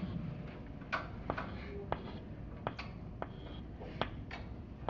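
Chalk on a blackboard while figures are drawn: irregular short taps and scratching strokes, about a dozen over the few seconds.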